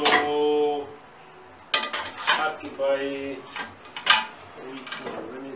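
Stainless steel kitchenware clinking and clattering with several sharp metallic knocks as pieces are handled and lifted out of a box.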